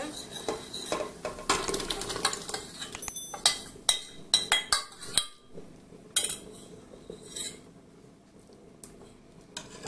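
Steel ladle clinking and scraping against stainless steel pots as a butter and red-pepper sauce is ladled and tipped from a saucepan into a pot of beans. The clinks come thick and fast in the first half, then thin out to a few now and then.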